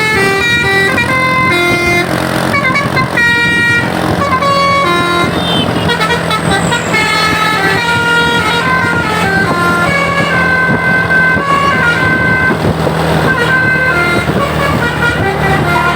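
A bus's basuri telolet horn playing a tune of quick stepped notes, changing pitch several times a second, over a steady low drone.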